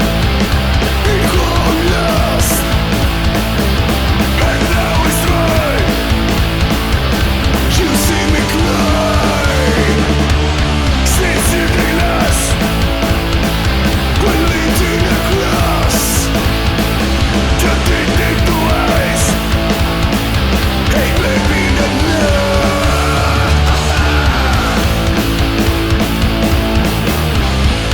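Punk rock band music: loud, steady, distorted electric guitar driving over bass and drums.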